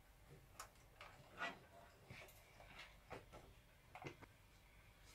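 Faint, irregular clicks and light knocks from handling the opened Hitachi VT-S1000 VCR as its hinged tape mechanism and circuit boards are swung up.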